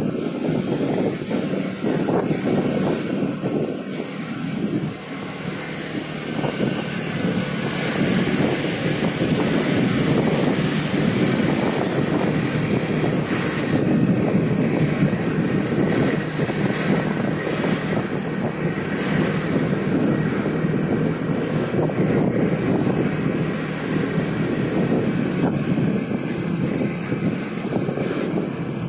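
A car driving, heard from inside the cabin: a steady rumble of engine and tyre noise, with wind noise on the microphone.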